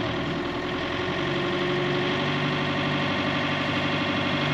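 A boat engine running steadily at low revs, an even, constant hum.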